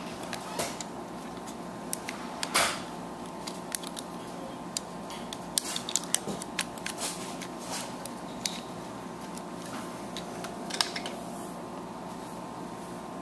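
Irregular light clicks and taps of small plastic parts being handled, a few close together between about five and eight seconds in, over a steady low hum.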